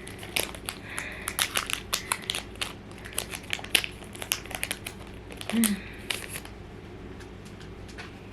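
Packaging crinkling and rustling in quick irregular crackles as a Pokémon card collection box is opened, stopping about six and a half seconds in.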